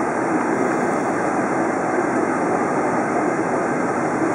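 Steady cabin noise of a Boeing 747-400 taxiing on the ground, its jet engines running at low taxi power. An even rush without distinct events.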